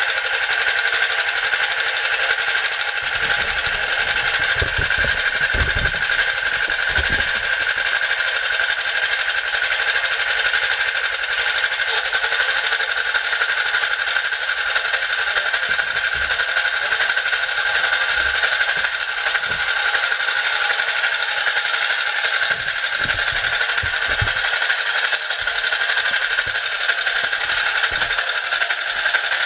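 Small engine of a screw-type cone log splitter running steadily at idle with its clutch engaged, driving the splitter shaft that works as a rope winch drum. It keeps one even running sound with a steady high whine above it.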